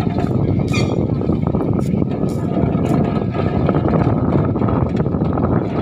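Narrow-gauge sugar-railway diesel locomotive's engine running loud and steady as the locomotive moves along the track.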